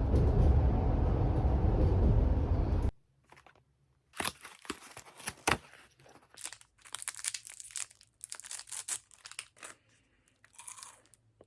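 A loud steady rush of noise cuts off abruptly about three seconds in. After that, packaging is crinkled and torn open in irregular rustles.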